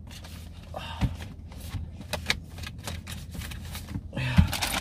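Cardboard box and plastic courier pouch being handled in a car: scattered rustles and taps, a dull thump about a second in, and denser crinkling near the end as the box goes back into the pouch.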